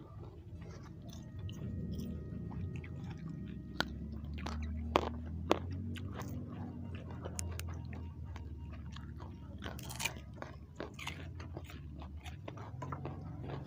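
Close-up chewing and biting of food eaten by hand, with wet mouth sounds and crunching, over a steady low hum. A few louder sharp clicks come about four to five and a half seconds in.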